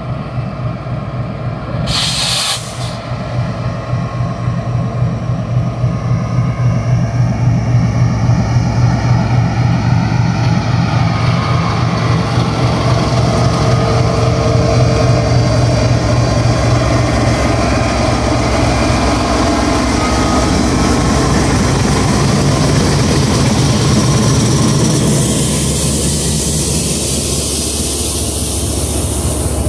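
Pakistan Railways diesel-electric locomotive 9020 passing close, its engine drone building up, then the passenger coaches rolling past with an even clatter of wheels on the rails. A brief hiss comes about two seconds in.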